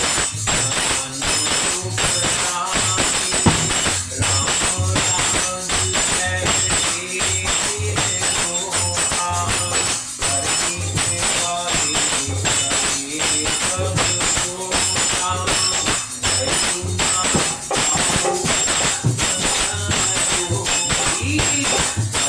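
Indian devotional music: a melody over a steady, regular drum beat with constant jingling percussion like a tambourine or manjira.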